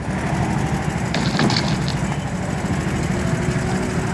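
Go-kart engines running on the track: a steady, low engine rumble.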